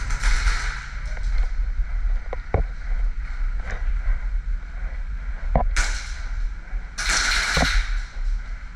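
Short bursts of airsoft gunfire, rapid crackling pops, three times, with a few sharp knocks in between over a steady low rumble.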